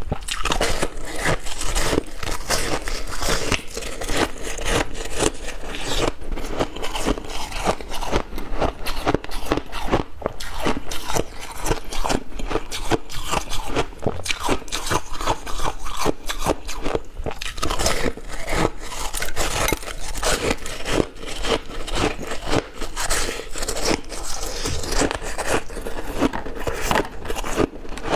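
Close-miked biting and crunching of a block of white frosty ice soaked in cola, a dense run of crisp crunches with no pause.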